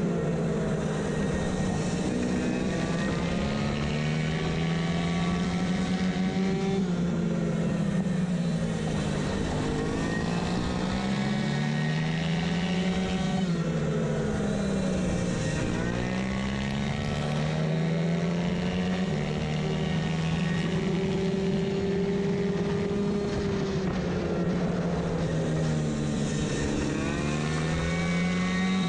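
Racing moped's two-stroke engine held at high revs by its variator on a track lap, its pitch sagging and climbing back every few seconds.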